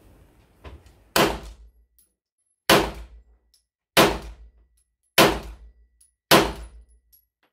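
Five pistol shots from the larger, metal-framed Arex pistol, fired slowly about a second and a quarter apart, each a sharp crack with a short ringing tail.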